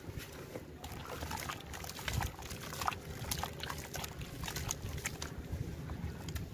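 A dry, crumbly stone-like block dunked into muddy water and squeezed by hand: water sloshing and splashing, with many sharp little crackles from about a second in as the soaked block breaks down.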